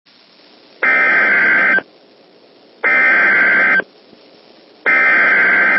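Emergency Alert System SAME header: three one-second bursts of screeching digital data tones, a second apart, over faint radio hiss. It is the coded start of an emergency alert broadcast, here a fire warning.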